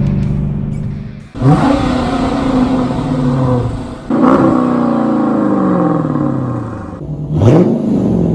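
Dodge Challenger R/T's 5.7-litre Hemi V8 running through shorty headers and straight pipes with no mufflers, under moderate-throttle acceleration. The engine note sweeps sharply up and then slides down three times, about one and a half, four and seven and a half seconds in.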